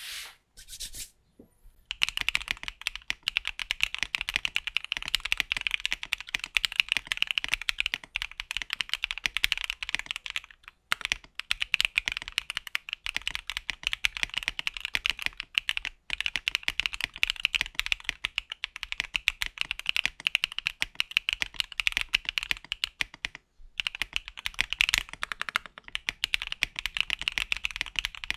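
Mechanical keyboard fitted with AKKO V3 Cream Yellow Pro linear switches being typed on fast and continuously, a clacky stream of keystrokes that starts about two seconds in, with a few brief pauses.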